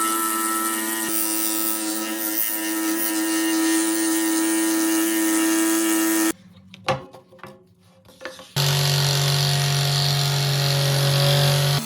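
Scroll saw running and cutting hardwood: a steady motor tone with the hiss of the blade. About six seconds in it drops out for roughly two seconds, leaving only a few faint clicks, then comes back at a lower pitch.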